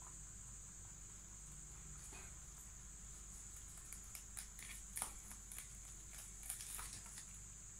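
Faint rustling and light irregular clicks as the rabbits and grass stalks are handled in a wire cage, mostly in the second half, over a steady high-pitched hiss.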